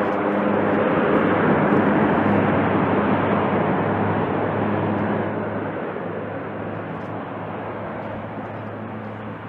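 Four turboprop engines of a C-130J at high power during its landing roll, their propellers reversed to brake and blasting up dust: a steady deep propeller drone under a loud rushing noise. It swells in the first second or two, then slowly fades as power comes off.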